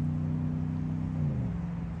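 GMC Sierra pickup's aftermarket exhaust droning as the truck pulls away, slowly fading, its pitch dropping about a second in.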